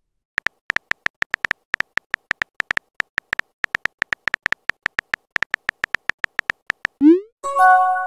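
Simulated phone-keyboard typing sounds: a fast, even run of short electronic clicks, about seven a second, as a text message is typed out. Near the end a quick rising whoosh and a short chime of several tones sound as the message is sent.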